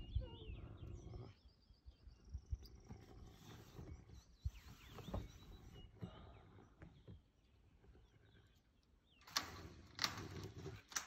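African civet caught in a barbed-wire fence: faint rustling and scattered small clicks, then a short, louder rough growl near the end.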